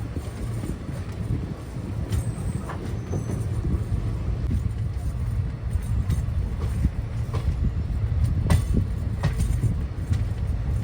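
Train moving at the platform: a steady low rumble with scattered sharp clacks and knocks from the wheels and carriages.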